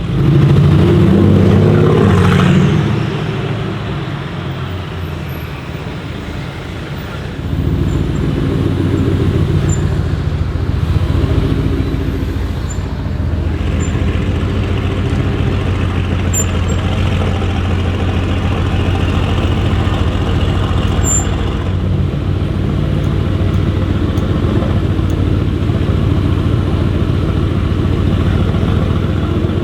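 Mercedes-AMG GT R Pro's twin-turbo V8 through a straight-pipe exhaust. It is loud for the first couple of seconds, with a brief rise in pitch, then eases off. From about seven seconds in it settles into a steady low engine note.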